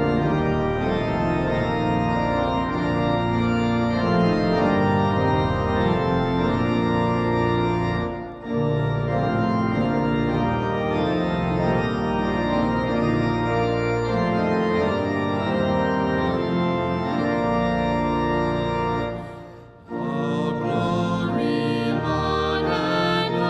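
Organ playing sustained chords as the closing music after the benediction. It breaks off briefly about eight seconds in and fades out near the end, and then a different piece with a wavering higher melody begins.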